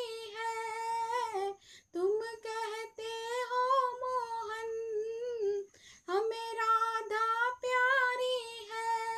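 A woman singing a Hindi devotional bhajan solo with no instruments, in long held phrases with short breath pauses between them.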